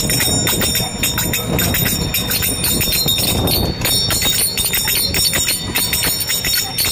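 Small brass hand cymbals (manjira) struck together over and over in a steady rhythm, each clash leaving a bright metallic ringing. The low road rumble of a moving rickshaw runs underneath.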